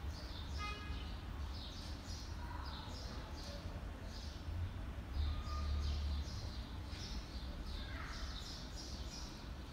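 Small birds chirping over and over, two or three short chirps a second, over a low steady rumble.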